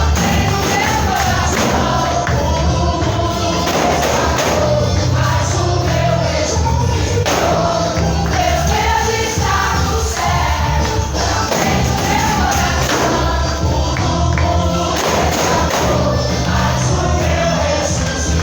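Live gospel worship music: a band with heavy bass playing while a group of voices sings.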